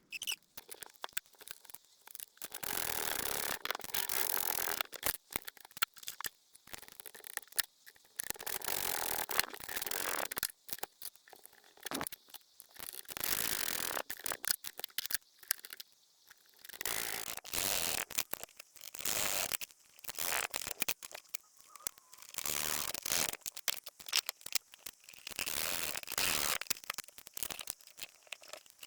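Hands working on transmission parts as solenoids are refitted to a mechatronics valve block: irregular bursts of rustling and scraping with small clicks, starting and stopping every second or two.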